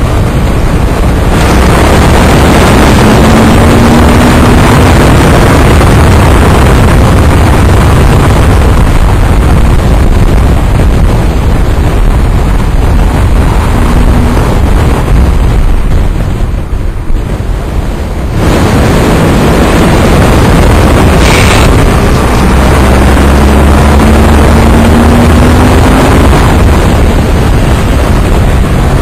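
Heavy wind buffeting on the microphone at track speed over a Honda ST1100 Pan European's V4 engine, which rises in pitch as it accelerates, twice. About two-thirds through the din drops briefly as the bike comes off the throttle.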